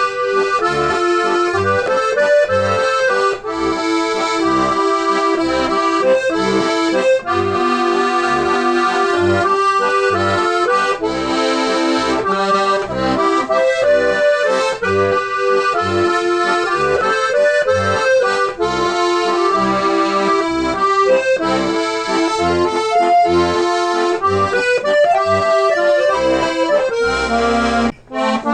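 Accordion playing a traditional-style tune, melody and chords over a steady, regularly pulsing bass, with a brief break near the end.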